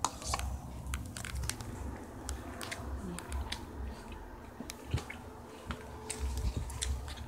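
Someone chewing crunchy cereal close to the microphone: irregular crunches and clicks.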